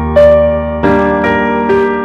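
Slow, sad piano music: notes struck about once or twice a second and left ringing over a held low bass.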